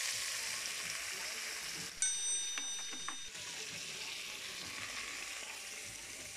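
Raw meat sizzling in hot oil with sautéing garlic and onion in a cooking pot, just after being tipped in, the sizzle slowly dying down. A brief metallic ring sounds about two seconds in.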